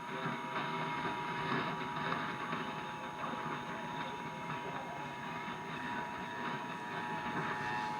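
Emergency Alert System attention signal: a steady two-tone alert (853 and 960 Hz) received over AM radio, with a hiss of static underneath.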